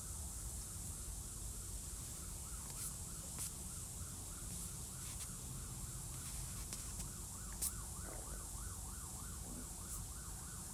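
Faint emergency-vehicle siren in yelp mode, its pitch swinging up and down several times a second, a little clearer in the second half, with a few soft clicks.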